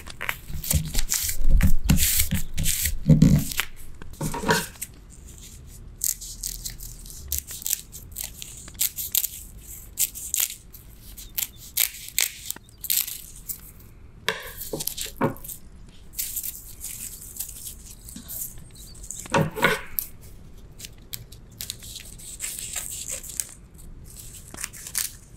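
Dry sheets of nori crackling as they are torn along a fold and snipped into long strips with kitchen scissors: a run of short, crisp crackles and snips. They are loudest in the first few seconds, then come in scattered bursts.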